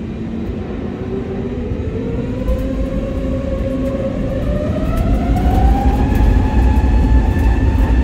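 Airbus A320neo's CFM LEAP-1A engines spooling up for takeoff, heard inside the cabin: a whine rising steadily in pitch and levelling off near the end, while a heavy rumble of the takeoff roll grows louder from about five seconds in.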